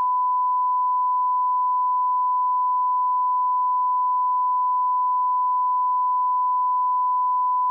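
A steady, unbroken 1 kHz sine test tone held at one pitch: the line-up tone that runs with broadcast colour bars as a reference for setting audio levels.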